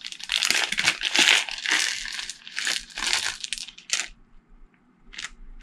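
A thin plastic zip bag crinkling in the hands as it is opened and red plastic dice are tipped out into a palm. The rustling stops about four seconds in, leaving a few short clicks.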